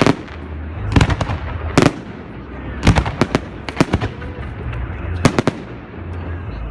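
Fireworks display: shells bursting in a string of sharp bangs, about one or two a second and sometimes in quick clusters, over a continuous low rumble.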